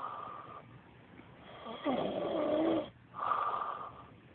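A sleeping man snoring. A hissing breath near the start, then a long wavering snore about two seconds in lasting about a second, then another hissing breath.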